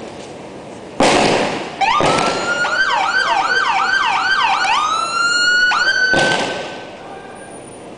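Police vehicle siren sounded briefly. A loud noisy blast about a second in, then a rapid up-and-down yelping wail that settles into a held tone and ends in another noisy blast near the end.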